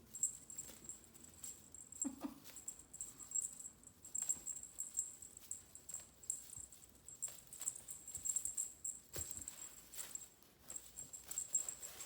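Light, irregular tapping and small rattling clicks with a faint jingle, like kittens playing and scampering about.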